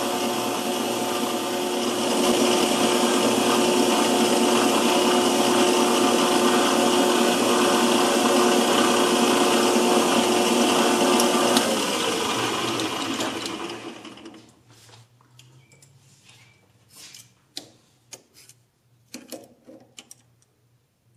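Metal lathe running with a steady machine whine while a hand-fed tool turns down bronze bar stock; it gets louder about two seconds in, then winds down and stops a little over halfway through. Faint clicks and knocks follow as a dial caliper is handled and set on the turned part.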